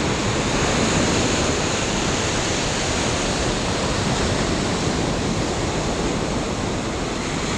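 Ocean surf breaking and washing up over shallow sand, a steady rushing of waves and foam.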